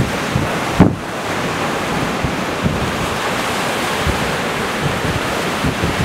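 Sea surf rolling in and breaking on a rocky shore, a steady rushing wash, with wind on the microphone. A brief low thump a little under a second in is the loudest moment.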